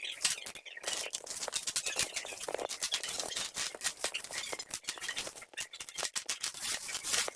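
Packaging being handled and opened: rapid crackling, rustling and small taps, many in quick succession.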